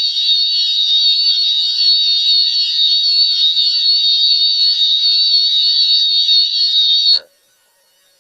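A loud, steady, high-pitched electronic alarm tone, wavering slightly, that cuts off about seven seconds in.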